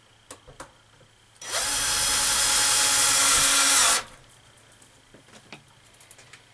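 Cordless drill driving a self-drilling screw into the screen door. It runs steadily for about two and a half seconds, starting about a second and a half in, then stops abruptly. Small clicks and knocks of handling come before and after.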